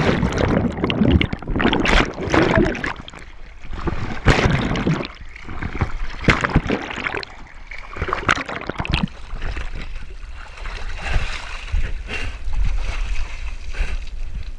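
Water splashing and churning right at the microphone as the camera dips in and out of the water, in irregular surges with sharp splashes.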